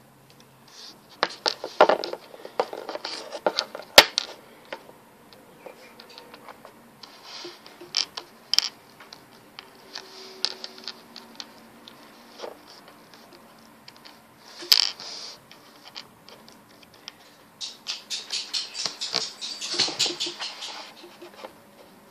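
Scraping, rustling and clicking of objects being handled close to the microphone, with a sharp knock about four seconds in and a quick run of clicks and rustles near the end.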